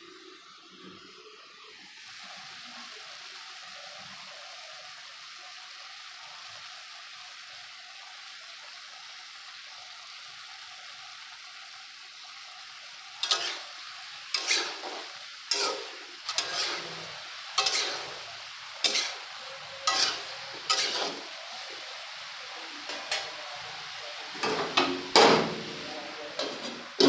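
Cauliflower and potato pieces sizzling in oil in a metal kadai. About halfway through, a metal spoon starts stirring, scraping and clanking against the pan roughly once a second over the sizzle.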